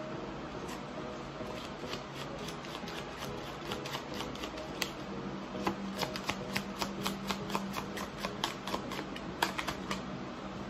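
A deck of cards being overhand-shuffled by hand: a run of quick, light card slaps and flicks that grows denser about halfway through.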